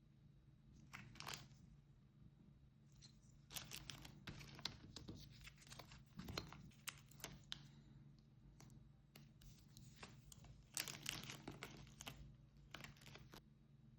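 Packaging of a chocolate surprise egg being crinkled and torn open by hand, faint crackles coming in bouts: once about a second in, a longer run in the middle, and another near the end.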